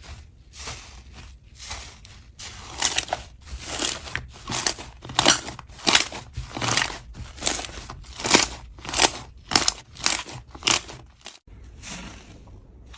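Slime being pressed and squeezed by hand, giving a crackling crunch with each press, about three presses every two seconds. It cuts off abruptly near the end.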